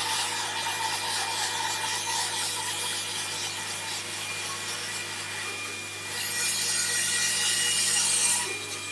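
Bandsaw fitted with a coarse resaw blade ripping a thin strip off a board, the blade hissing steadily through the wood and getting louder for the last couple of seconds before the cut finishes about eight seconds in. Under it runs the steady hum and whistle of a dust extractor.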